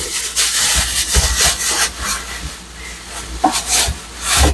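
Packing materials being handled while an item is packed into a shipping box: continuous rustling and rubbing, with a few soft knocks.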